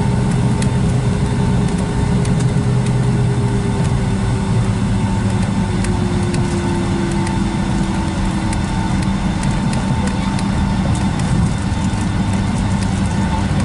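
Cabin noise of a Boeing 757-200 taxiing after landing: the jet engines running at idle as a steady hum. A faint tone slides slowly lower in pitch midway, with light ticks scattered through.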